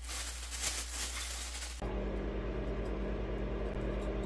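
A hiss with faint clicks for about two seconds, then it cuts abruptly to a steady low electrical hum, like a kitchen appliance or fan running.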